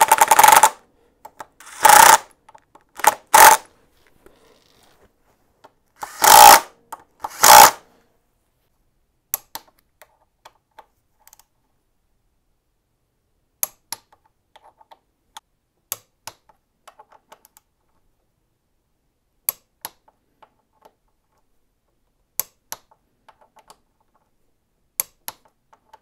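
Five short bursts of a cordless power tool running bolts down in the first eight seconds, then sparse sharp clicks, often in pairs, of a click-type torque wrench reaching its set torque on the front axle pinch bolts.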